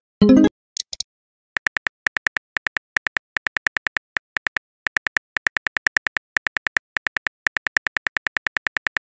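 Texting-app sound effects: a short pop as an incoming message appears about a quarter second in, then simulated phone-keyboard typing, short tapping clicks about five or six a second in runs with brief pauses.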